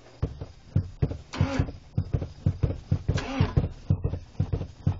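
Car engine being cranked by the starter in rhythmic chugging pulses while the gas pedal is pumped, with two louder sputters about a second and a half and three seconds in as it tries to fire. This is typical of an engine being flooded with fuel.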